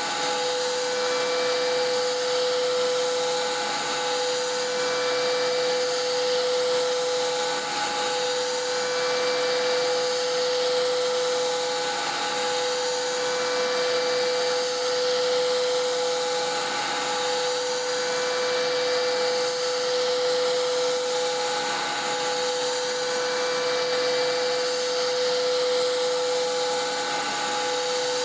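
CNC router's 11 hp Hiteco spindle at 10,000 rpm, driving a three-flute bit through an adaptive pocketing cut. It gives a steady cutting tone over a hiss, pitched by the three flutes striking the work, and the tone dips briefly about every four to five seconds.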